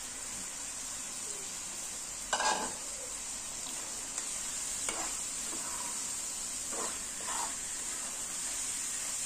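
Shredded potato and spice paste sizzling in hot oil in a metal karai, with a metal spatula scraping and stirring through it a few times; the loudest scrape comes about two and a half seconds in.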